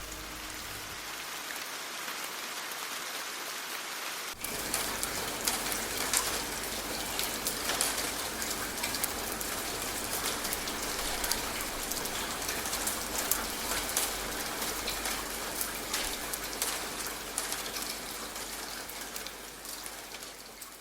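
Rain falling, with many sharp drops pattering on a nearby surface over a steady hiss; it gets louder after a sudden change about four seconds in.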